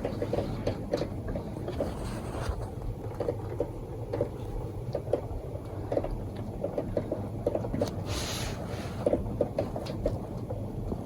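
Rain falling in a typhoon, many irregular drips and taps over a low steady rumble, with a brief louder rush of rain about eight seconds in.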